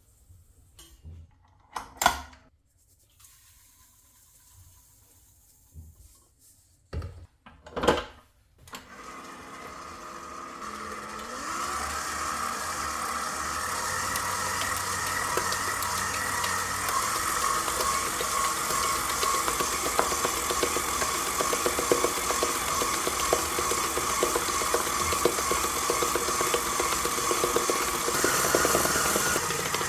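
A few sharp knocks, then about nine seconds in an electric mixer starts up and runs steadily, building over the first few seconds: a mixer beating egg whites for meringue.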